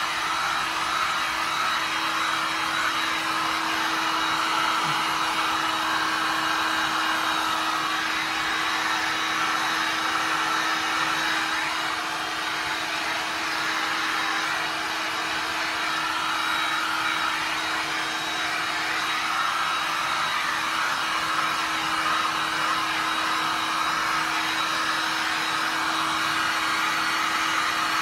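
Handheld heat gun running steadily: an even rush of blown air with a constant low hum from its motor.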